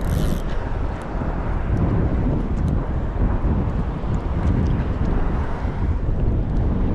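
Strong wind buffeting the microphone: a loud, uneven low rumble that swells and dips.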